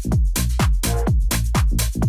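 Electronic dance music with a steady pounding kick-drum beat, about two beats a second.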